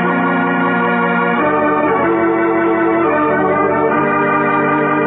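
Organ music for the opening of an old-time radio drama: held chords that change about a second and a half in and again about three seconds in.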